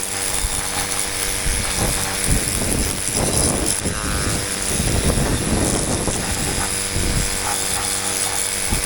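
Cordless battery-powered car-wash spray gun running steadily, its pump motor humming under the hiss of the water jet hitting the car. The owner feels the battery is no longer as strong as at the start.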